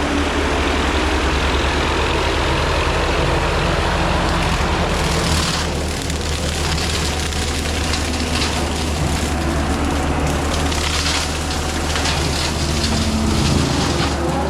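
John Deere 326E skid steer's diesel engine running steadily with its hydraulic brush cutter spinning. From about five seconds in, crackling and snapping of brush and wood being shredded by the cutter join in.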